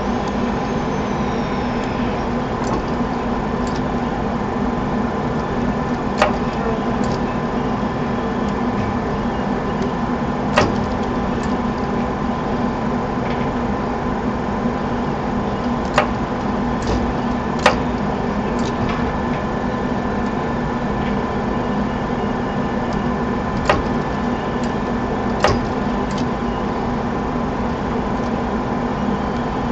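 Steady machine hum carrying several steady tones, broken by short sharp clicks every few seconds.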